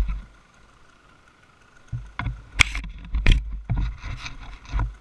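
Rumbling and sharp knocks on a helmet-mounted action camera's microphone, starting about two seconds in as a gloved hand moves up against the camera. The two loudest knocks come about 2.6 and 3.3 seconds in. Before that it is faint.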